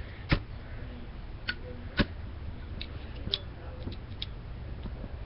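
A few sharp metallic clicks and taps, spaced irregularly, from a Zippo lighter being handled. The two loudest come about a third of a second in and about two seconds in, over a low hum.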